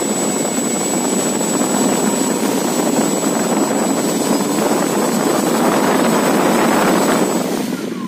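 Drone BLDC motor spinning a two-blade propeller as a fan: a loud, steady whoosh of air with a thin high whine over it, winding down near the end with a falling pitch.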